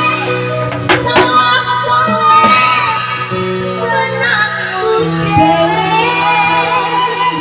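Gondang-style medley music: a singer's wavering melody over plucked strings and a held bass note that shifts pitch about five seconds in, with a few sharp percussive strikes.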